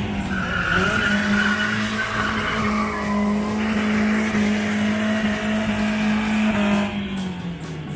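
Car engine held at high revs while the rear tyres spin and squeal in a smoky burnout drift. The revs fall away near the end.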